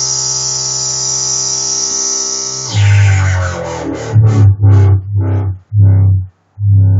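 Native Instruments Massive software synthesizer playing a bright sustained chord with its filter wide open. Nearly three seconds in, the filter sweeps shut and a deep, loud bass takes over in short chopped notes, each cutting off sharply.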